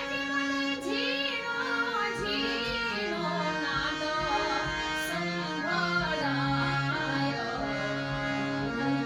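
A woman singing a Gujarati devotional bhajan in long, ornamented lines over steady held notes from an accompanying instrument.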